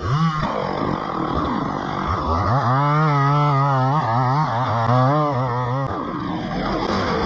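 Small two-stroke engine, most likely a chainsaw, running loudly with its pitch wavering up and down for a few seconds, then settling into a rougher, steadier running sound.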